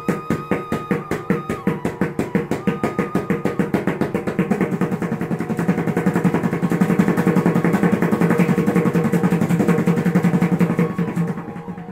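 Pakhawaj treble head (shaipudi) played with the alternating finger strokes of the bol 'tit' (ti-ta), starting at about five strokes a second and speeding up into a fast, even roll that grows louder, then dying away near the end.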